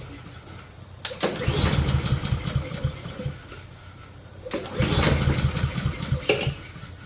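Honda lawn mower engine being pull-started twice, each pull turning it over in a burst of rapid chugging that dies away without the engine catching. It fails to start, which the owner takes as a sign that the carburetor needs servicing.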